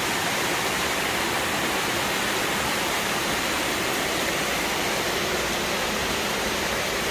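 A steady, even rushing noise with no separate sounds in it.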